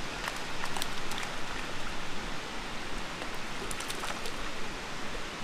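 Steady rush of a strong river current, with a few brief splashes from a hooked brook trout thrashing at the surface, the last ones about four seconds in.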